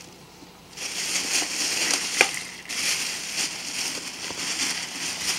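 Thin plastic shopping bag crinkling and rustling as a ferret burrows his head into it, starting about a second in, with sharper crackles now and then.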